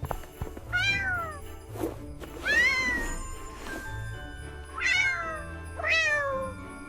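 Four meows from a cartoon kitten character, each rising then falling in pitch, over soft background music with a steady low bass.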